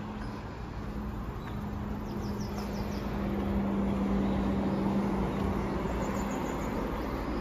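Road traffic outdoors: a steady engine hum that swells as a vehicle passes through the middle, with a short run of bird chirps about two seconds in.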